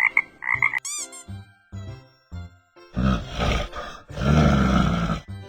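A couple of frog croaks at the start, then a quick rising swoop and light plinking children's music. About three seconds in come two deep growling roars, the second longer and the loudest thing here: a bear roar sound effect.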